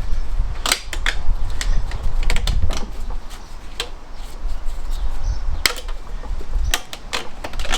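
Irregular sharp clicks and knocks of hand tools and engine parts being handled during engine dismantling, over a low rumble.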